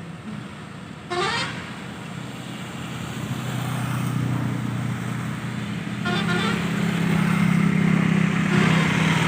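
Slow-moving road traffic with engines running, growing louder and closer after a few seconds. A short vehicle horn toot comes about a second in and another about six seconds in.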